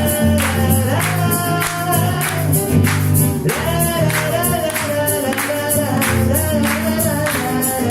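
Live band music with voices singing a wordless "la la la" refrain and hands clapping along in a steady beat.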